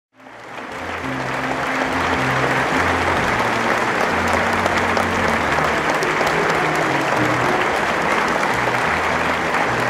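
A large crowd applauding steadily over loud music with a stepping bass line, fading in from silence over the first two seconds.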